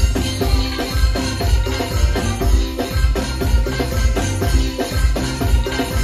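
Live band music played loud through the tall speaker stacks of a music truck during a sound check: a heavy, steady drum beat about twice a second, with percussion and pitched instrument lines over it.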